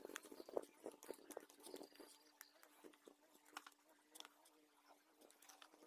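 Small knife shaving and scraping a wooden spoon handle: faint, irregular short scrapes and clicks, with a faint steady hum beneath.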